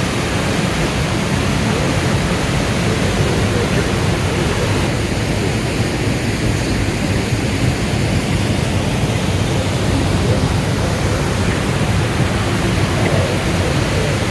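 High Force waterfall, the River Tees falling 21 metres over hard rock, sending up a loud, steady rush of water with no let-up.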